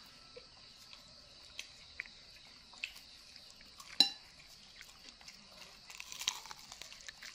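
Soft crunching and chewing of a crispy bread snack, with scattered small clicks and crackles. One sharp click about four seconds in, and a denser run of crunching around six seconds.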